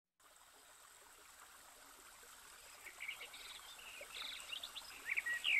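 Faint steady rush of falling water from a waterfall, fading in, with small birds chirping over it from about three seconds in, the chirps coming more often near the end.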